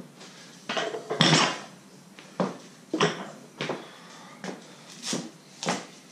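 A loaded barbell with bumper plates being handled on the floor: a string of sharp metal clinks and knocks, about eight in all, the loudest one about a second in with a short ring.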